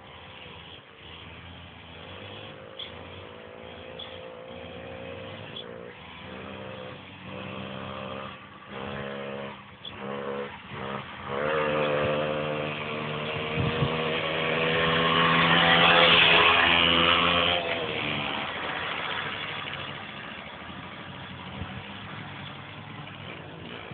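Romet Ogar 200 two-stroke moped engine revving as it approaches, with brief dips in the revs along the way. It grows loudest as it passes about two-thirds of the way through, then fades as it rides away.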